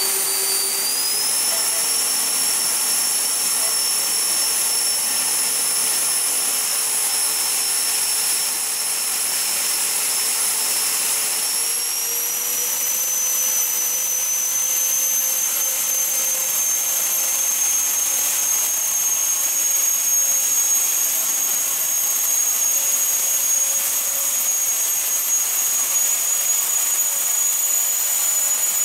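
Electric ducted fans of a large RC Dornier Do 31 VTOL model, eleven EDFs in all, running together with a steady high whine. The pitch steps up about twelve seconds in and keeps creeping higher toward the end as the throttle is opened.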